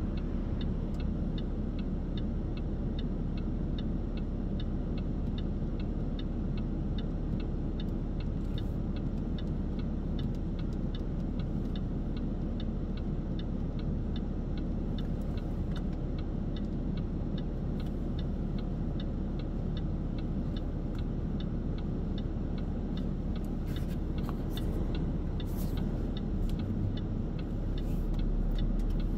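Car's turn-signal indicator ticking steadily and evenly over the low hum of the idling engine. The engine sound rises a little near the end as the car starts to creep forward.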